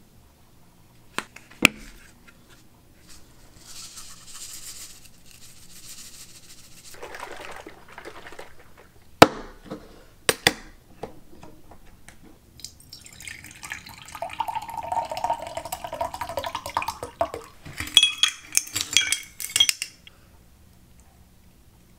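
Kitchen handling sounds: a few sharp taps and knocks, soft rustling, then a busy stretch of scraping, rustling and clinking late on.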